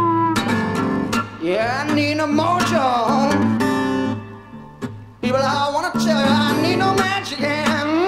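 Blues-rock band recording in an instrumental passage, led by a guitar playing bending lead lines over a steady accompaniment. The playing thins out and drops quieter for about a second near the middle, then the full band comes back in.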